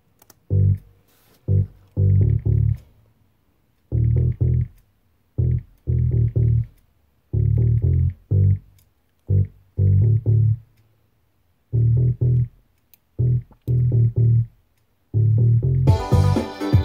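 Bass line played back from the Reason sequencer on its own: short low plucked notes in a two-bar phrase that repeats about every four seconds, with silent gaps between the notes. Near the end the full arrangement comes in with other instruments.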